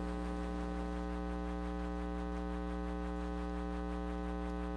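Steady electrical mains hum picked up through the microphone and sound system: an unchanging low buzz with many even overtones.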